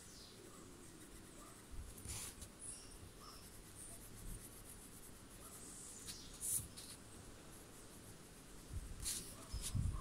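Coloured pencil scratching on a paper Zentangle tile in faint, short shading strokes, with a soft bump near the end.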